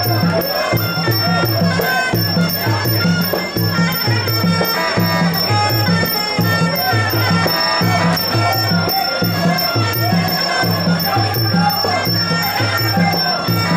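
Traditional Muay Thai fight music (sarama): a wavering, reedy oboe-like melody over a steady, repeating drum beat with light jingling percussion.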